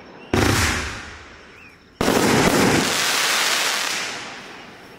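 A 500 g firework cake firing two aerial shots. Each goes off as a sharp bang followed by a noisy tail that fades, the first a little after the start and the second about two seconds in, its tail lasting around two and a half seconds.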